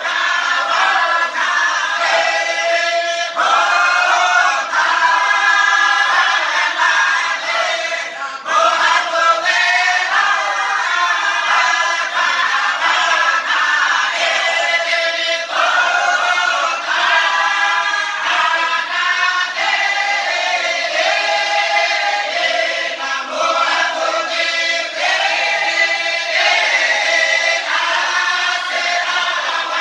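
A group of men singing a chant together, the song running on continuously with a short break about eight seconds in.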